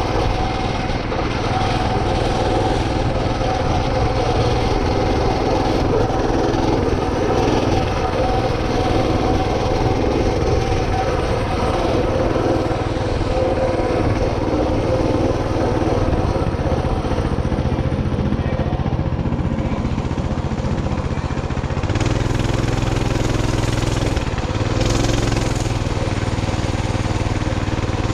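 A small engine running steadily at a fairly even speed, a little louder from about 22 seconds in.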